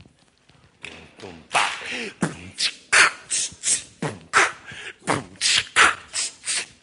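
Beatboxing: short, sharp vocal percussion strokes in a steady rhythm of about three a second, starting about a second in.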